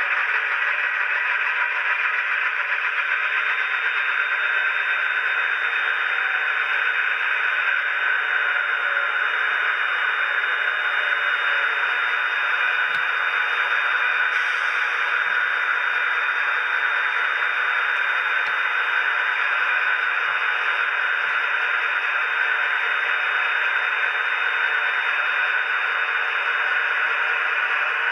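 Dapol Class 68 OO-scale model locomotive's DCC sound decoder, with the Olivia's Trains Class 68 sound, playing the diesel engine running through its small onboard speaker. It is steady, thin and hissy with no bass, and a thin high-pitched whine runs through it.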